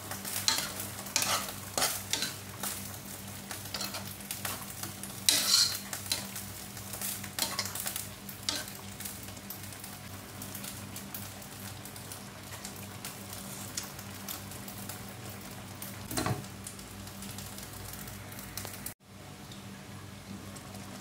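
Metal spoon stirring a steel pan of chicken gizzards simmering in coconut milk, with a chicken stock cube just added. Frequent clinks and scrapes of the spoon against the pan for the first several seconds over a steady bubbling hiss, then a single louder knock.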